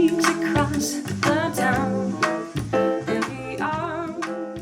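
A slow vocal song with singing over a band, played back through Bowers & Wilkins 805 D4 Signature speakers driven by a Marantz Model 10 amplifier, gradually getting quieter.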